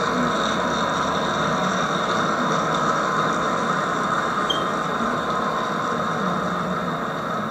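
HO-scale model freight train rolling past close by: the steady running noise of its boxcars' wheels on the track.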